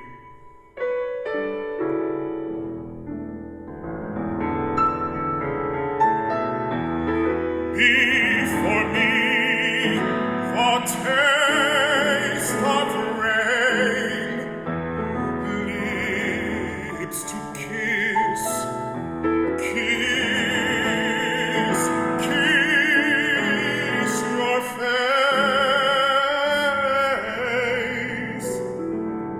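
Classical art song: a baritone singing with a wide vibrato over piano accompaniment. The piano plays alone at first, and the voice comes in about a quarter of the way through.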